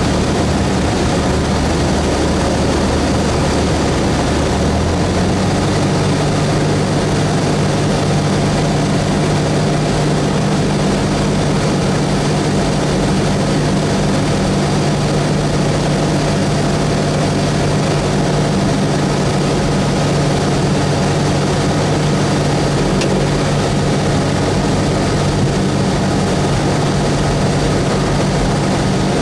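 Cessna 172S's four-cylinder Lycoming engine and propeller running with a steady, loud drone. About five seconds in, the engine note steps up slightly in pitch, a small power change.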